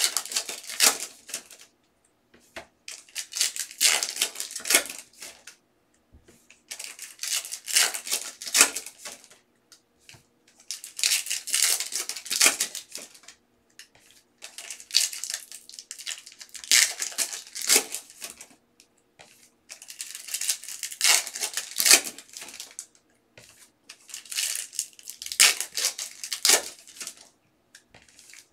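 Foil trading-card pack wrappers crinkling and tearing open, with the cards inside handled and shuffled, in repeated bursts a couple of seconds long.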